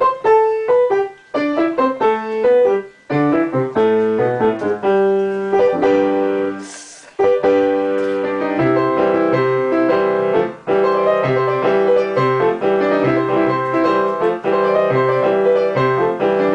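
Piano playing a song: single melody notes and broken chords at first, a brief break about seven seconds in, then a fuller passage with a repeating low bass note under the chords.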